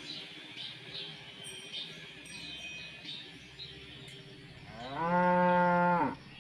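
A cow lows once near the end, a single moo of about a second that rises, holds steady and drops off. Before it there are only faint high chirps.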